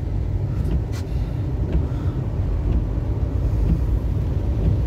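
Cabin noise of a Mitsubishi Shogun 4x4 driving through floodwater: a steady low rumble of engine and tyres, with a single click about a second in.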